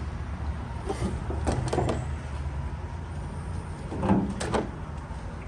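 Short mechanical whirs and clicks from a Danchee Ridgerunner RC truck's steering servos turning the wheels: a few about one to two seconds in and a louder one just after four seconds.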